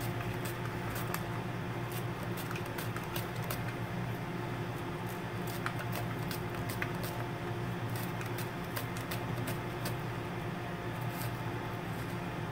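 Green onion being sliced on a handheld mandoline: a run of short, crisp clicks, a few a second and unevenly spaced, as the stalk is pushed across the blade, over a steady background hum.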